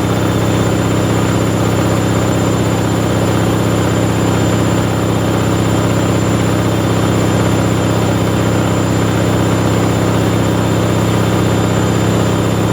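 Bauknecht WA 7778 W front-loading washing machine running a steady high-speed spin, a loud even drone with a deep hum. Its drum bearing was already beginning to wear, a fault that later finished the machine.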